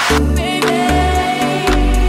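Background music with deep bass notes and a steady beat.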